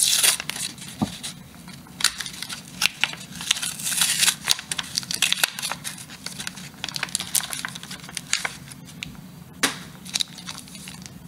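Paper wrapper of a small five-card trading-card package being torn open and crinkled, a dense run of crackles and rips that thins out near the end into the light handling of the cards.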